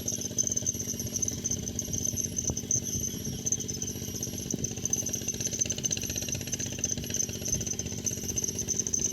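Fishing reel being cranked as line is reeled in, a continuous uneven rattle.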